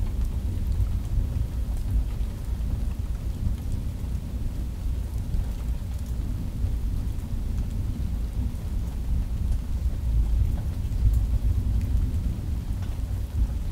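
Thunder rumbling low and continuously, swelling a little about ten seconds in, with rain falling.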